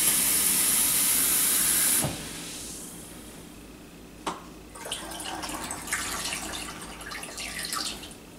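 Kitchen faucet running water into a measuring cup, shut off abruptly about two seconds in. After a small knock, water is poured from the cup through a funnel into a plastic bottle: a softer, uneven splashing for a few seconds.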